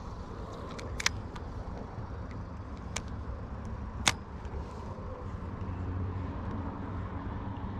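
Wind rumbling on the microphone, with a few sharp clicks from handling the spinning rod and reel during a cast and retrieve. There is one click about a second in, another about three seconds in, and the loudest about four seconds in.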